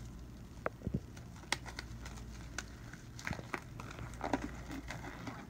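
Nitrile exam gloves being pulled onto the hands: soft rubbery rustling with scattered small snaps and clicks.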